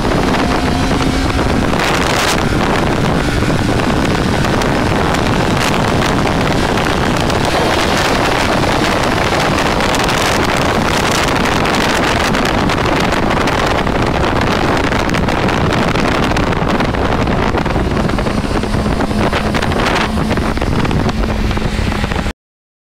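Heavy wind rushing over the microphone on a moving Suzuki GSX600F motorcycle, with its inline-four engine running underneath at a steady pace. The sound stops abruptly near the end.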